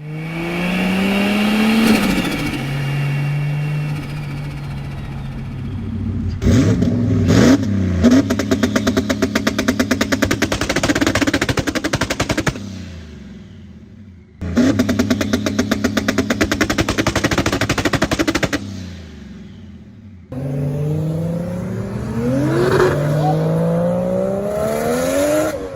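Turbocharged car engines revving hard through the gears, with two long bursts of rapid turbo flutter: compressor surge chattering as the throttle is lifted, fading away. These are separate cut clips, with abrupt changes between them.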